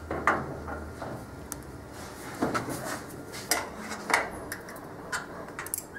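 Hand tools and metal parts clinking and knocking during restoration work on an old car, in a series of separate sharp strikes about one a second.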